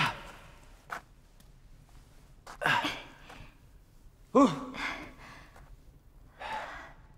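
A person's short wordless vocal sounds: a brief cry falling in pitch at the start, a breathy gasp a little before three seconds in, another falling cry about halfway, and a faint breath near the end.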